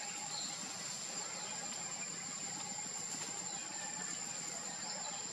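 Steady outdoor background noise with a constant high, thin whine and a few faint, short chirps.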